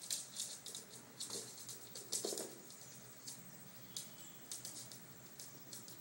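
A chihuahua's claws clicking and skittering on a hard floor in quick, irregular bursts of light taps, with a brief squeak about two seconds in.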